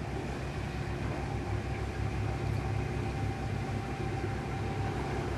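Narrowboat's diesel engine running steadily, a low, even rhythmic beat.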